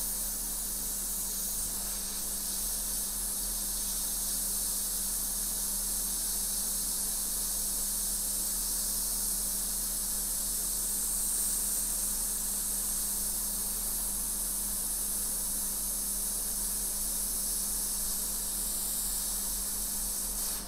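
Hot air rework station blowing a steady hiss of hot air onto the iPhone logic board to melt the solder and lift the faulty chip. It stops suddenly near the end.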